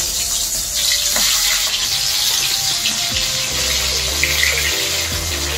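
Prawns sizzling as they shallow-fry in hot mustard oil in a kadai, a steady loud hiss that swells as each prawn is laid into the oil.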